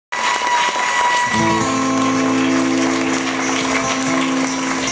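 Live music: a chord held steady from about a second and a half in, over a hiss of background noise.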